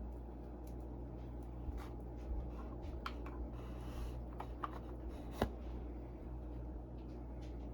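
Small clicks and rubbing of hands handling parts and cables on a workbench, with one sharper click about five and a half seconds in, over a steady low electrical hum.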